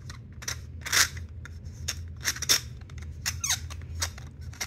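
Metal screw threads of a lightsaber hilt squeaking and grinding as the emitter section is twisted off by hand: a run of short squeaks and clicks, the loudest about a second in, with one falling squeak about three and a half seconds in.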